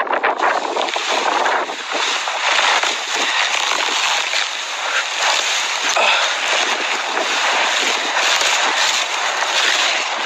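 Plastic bubble wrap crinkling and rustling as it is cut, pulled and bunched up right against the microphone, a dense run of crackles.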